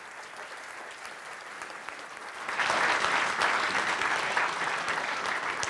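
Audience applauding, the clapping growing louder about two and a half seconds in.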